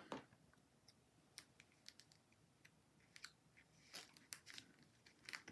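Near silence, with a few faint, scattered clicks and taps as paper card pieces are handled and pressed down by hand on a tabletop.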